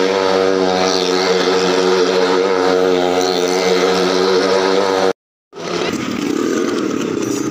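Motorcycle engine running at a steady speed as the bike circles the wall of a well-of-death drum. About five seconds in the sound cuts out for a moment, then comes back rougher.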